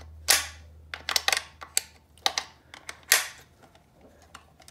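Steel spanner clicking and scraping on the throttle linkage nuts of a Tohatsu 9.8 hp outboard as they are loosened: a handful of sharp metal clicks and scrapes over the first three seconds, then only faint handling.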